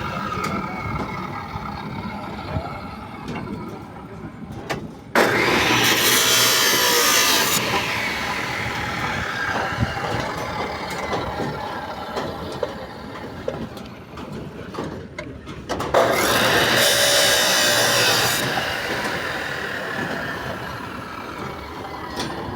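Construction-site work noise: two loud, harsh noisy stretches of about two and a half seconds each start suddenly about five and sixteen seconds in, with quieter irregular knocks and scraping between.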